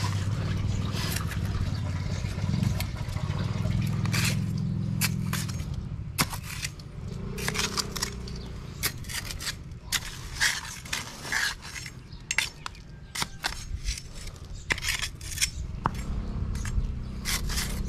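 A machete digging into hard, dry soil: irregular chops and scrapes of the blade, with sharp clinks. A low steady rumble runs under the first five seconds or so and comes back near the end.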